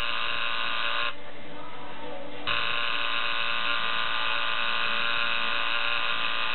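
Electric tattoo machine buzzing as it inks skin. The buzz stops about a second in and starts again about two and a half seconds in.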